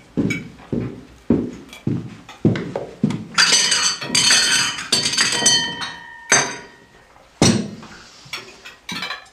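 Heavy thuds about twice a second, then a long clattering crash of dishes and glass with a ringing note. A single sharp bang follows near the end.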